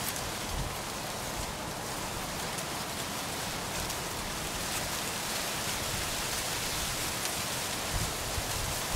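Steady outdoor hiss of wind, with low rumbles of wind buffeting the microphone that come more often near the end.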